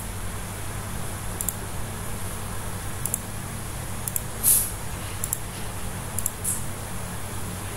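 Computer mouse clicking every second or so over a steady low hum, with one louder short noise about halfway through.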